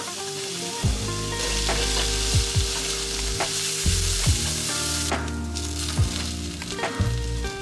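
Chopped onions sizzling in hot oil in a nonstick frying pan, starting about a second in, while a plastic spatula stirs them with scrapes and knocks against the pan. Near the end, sliced mushrooms are tipped in among the frying onions.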